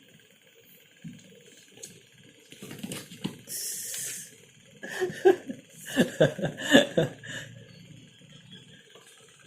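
A person laughing in a run of short bursts, loudest about six to seven seconds in, after a brief high hiss near the middle.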